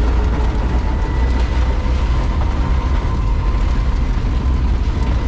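Cabin noise of a Selis Balis three-wheeled electric car driving in heavy rain: a steady low rumble under a dense hiss of rain and wet tyres, with a faint steady whine.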